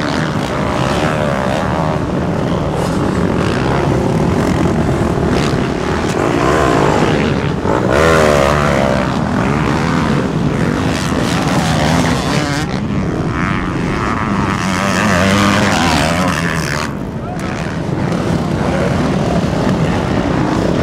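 Many motocross dirt bike engines running together in a dense, loud drone, their revs rising and falling.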